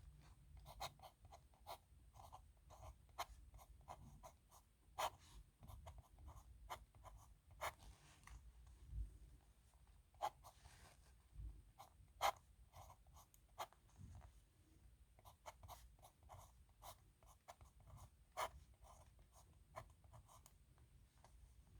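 Faint scratching of a steel nib pen on paper as characters are written: many short strokes in quick succession, with a few sharper ticks now and then.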